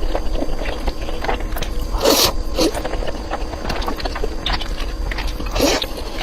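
Close-miked chewing of food: a steady run of wet crackling and small clicks, with two louder noisy bursts, one about two seconds in and one near the end.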